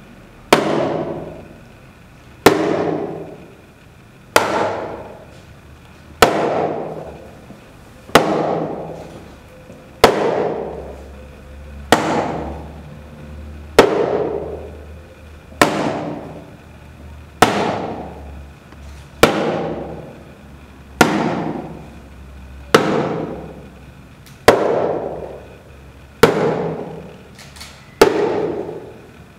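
A thin stick striking a white box in a slow, even beat, about one hit every two seconds. Each sharp hit rings out and echoes off stone walls before the next.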